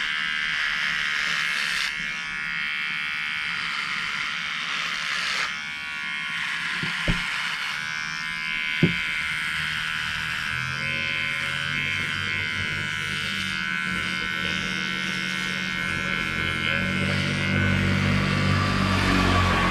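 Cheap cordless dog hair trimmer buzzing steadily as it cuts beard hair. Two sharp clicks come about seven and nine seconds in, and a lower hum joins about halfway through.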